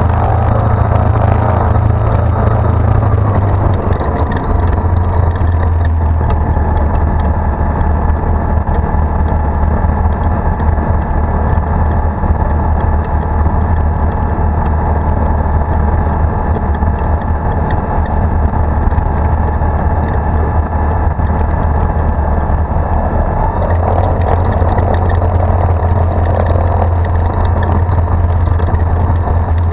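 Single-engine light aircraft's engine and propeller running at taxi power, heard from inside the cockpit as a steady drone. The engine note drops slightly about three seconds in.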